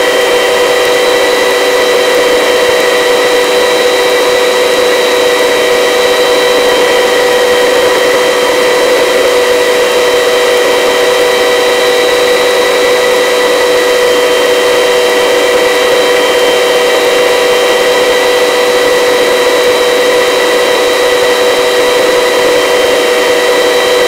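Helicopter in a steady low hover: a loud, unchanging engine and rotor whine with several held tones.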